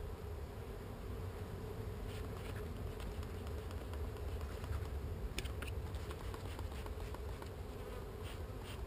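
Honey bees buzzing steadily in a mass around an opened hive; they are agitated and defensive. Scattered light clicks and ticks from handling start about two seconds in and come more often near the end.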